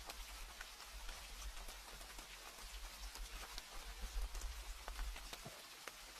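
Steady rain: a constant hiss of rainfall with many small, separate drop hits scattered through it, over a low, even rumble.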